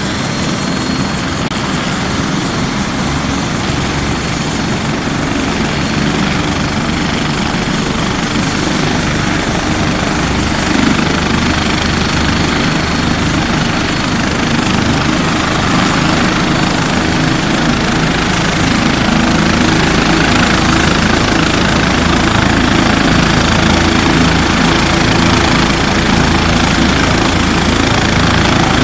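Helicopter running on the ground with its main rotor turning, a steady high whine over the engine and rotor noise. The rotor beat grows gradually louder and deeper past the middle.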